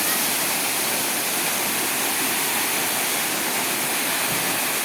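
Waterfall: falling water making a steady rushing hiss.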